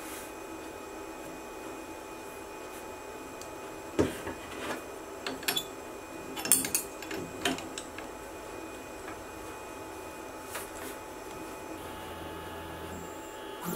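Sharp clicks and clacks of hard plastic and metal being handled at a CNC router's spindle: the magnetic dust boot coming off and a touch-probe clip going onto the bit. The clicks bunch together about four to eight seconds in, over a steady machine hum.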